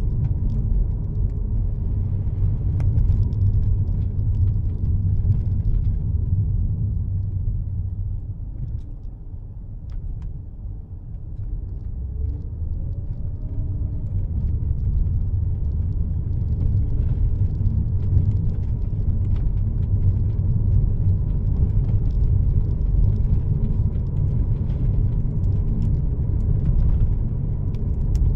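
Car interior road noise while driving: a steady low rumble of engine and tyres on a wet road. It eases off a few seconds in, then builds again.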